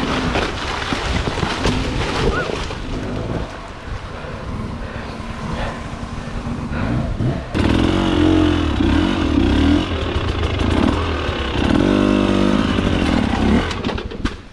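Enduro motorcycle engine running off-road with the throttle worked on and off. About halfway in it gets louder, with the revs repeatedly rising and falling, then drops away just before the end.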